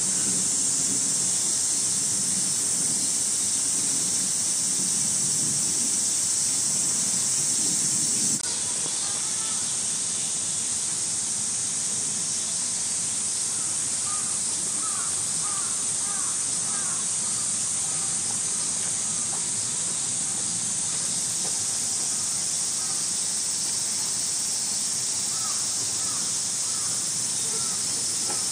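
Steady high hiss of a summer cicada chorus. Short chirping bird calls come in repeatedly in the middle and again near the end. A low murmur under the first eight seconds drops away abruptly.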